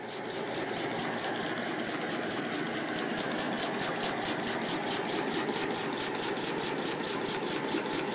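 Homemade single-cylinder steam engine running, with a rapid, even beat of about six strokes a second.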